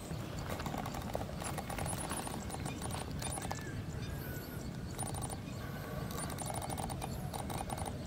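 Outdoor field ambience: a steady low rumble with irregular light clicks and rustles throughout, and a few faint short high chirps.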